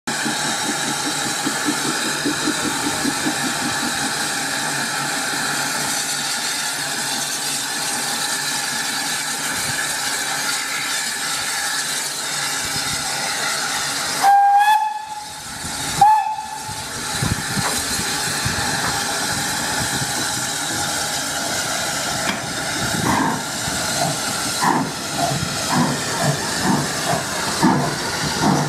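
SE&CR C class steam locomotive No. 592 hissing steam at a standstill, with two short whistle blasts about two seconds apart halfway through. In the last few seconds regular exhaust chuffs begin and quicken as the engine starts to pull away.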